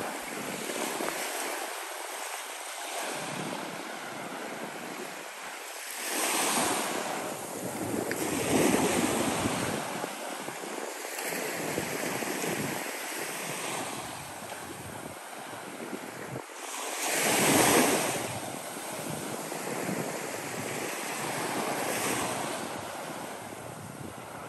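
Small waves breaking and washing up onto a sandy beach: a continuous surf wash that swells as each wave breaks, loudest about 17 seconds in.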